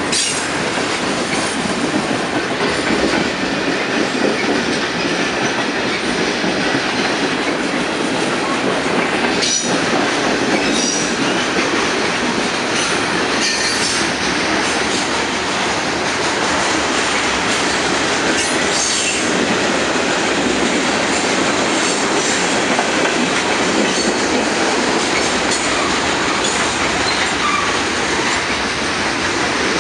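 Freight train of tank cars rolling steadily past close by: continuous wheel-on-rail noise with knocks over rail joints, and brief high wheel squeals around ten and fourteen seconds in.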